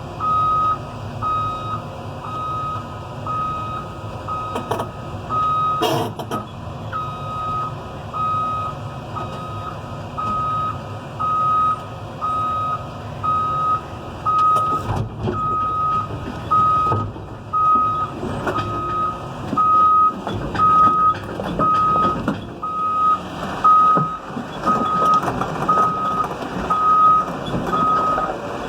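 CAT 320 excavator's travel alarm beeping about once a second while the machine tracks slowly down off a trailer, over its diesel engine running. A couple of sharp knocks about five and six seconds in, with more clanking from the tracks and steel in the later part.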